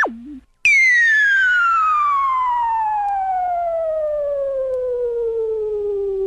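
Cartoon-style falling whistle sound effect: a single whistling tone that starts high about half a second in and glides slowly and steadily downward. It is the kind of effect used for something dropping from a height. It opens with the end of a warbling whistle that bends up and down and cuts off.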